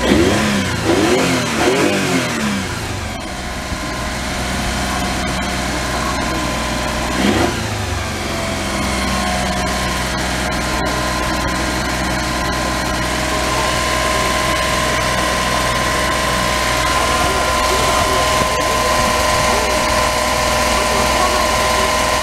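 Mitsubishi Minicab U42T's 3G83 three-cylinder carburetted engine running, revved up and back down in the first few seconds and again briefly about seven seconds in, otherwise holding a steady speed. It is running again after a failed fuel pump was replaced.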